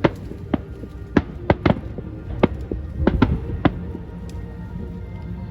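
Fireworks exploding overhead, about nine sharp bangs at irregular intervals that stop about four seconds in, over background music.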